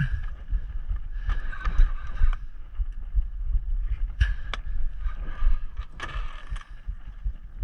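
Steady low rumble of wind and the boat on the sea, with a spinning reel whirring in short spurts as a jig is cranked, and a few sharp clicks about four to six seconds in.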